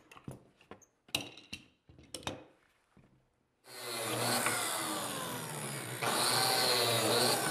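A few light knocks of wood parts being handled, then a biscuit joiner (plate joiner) starts about three and a half seconds in and runs steadily, cutting biscuit slots in wood.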